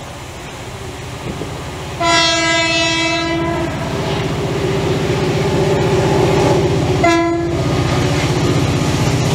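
Approaching diesel freight locomotive sounds its horn twice: a blast of about a second and a half, then a short one about five seconds later. Between and under them its engine and wheels rumble steadily, growing louder as it nears.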